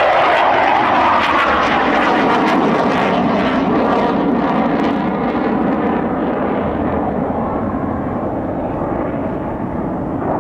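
Jet noise of Blue Angels F/A-18 Hornets flying low overhead: loud, with a falling whine over the first couple of seconds, then slowly fading. Cuts off suddenly at the end.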